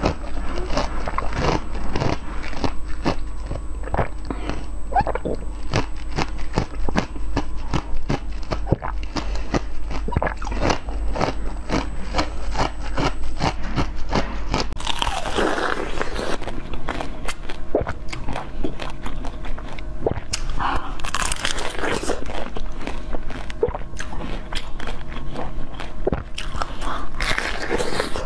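Biting and chewing crunchy jelly: a dense run of sharp crackles and clicks, with louder crunching bites about halfway through, again about two-thirds in, and near the end.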